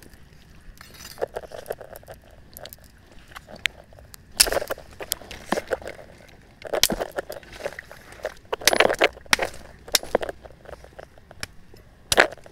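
A leafy tree branch knocking and scraping against wet river rocks as it is worked down into a hole between them, in irregular clattering bursts with rustling leaves.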